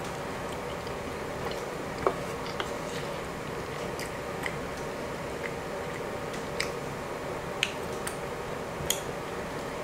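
A person chewing a mouthful of soft rice and peanut stew close to the microphone. A few short, sharp clicks are scattered through it over a steady low background hum.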